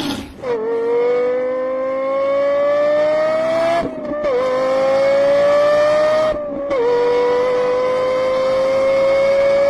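High-revving car engine at full acceleration, its note climbing steadily and dropping briefly twice, about four and six and a half seconds in, as it shifts up through the gears.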